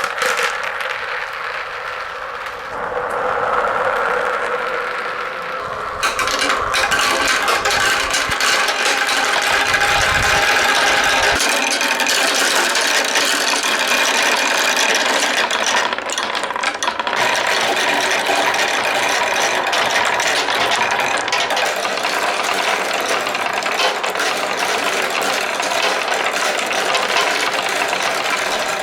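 Marbles rolling and clattering along wooden slopes and through a hose, a continuous dense rattle that grows louder about six seconds in and then holds steady.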